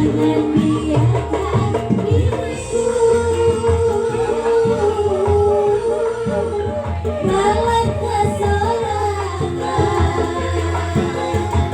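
Live jaranan gamelan music: kendang hand drums and gamelan percussion under a singing voice, with a long wavering held melody note through the first half.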